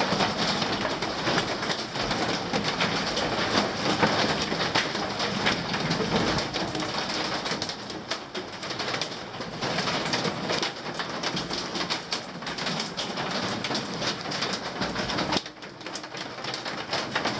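Steady hiss of rain with rustling and scattered crackling clicks, dropping off sharply about fifteen seconds in.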